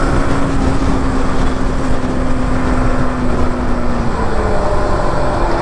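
Motorcycle engine running at speed under heavy wind rush, its steady note sinking slightly as the throttle eases.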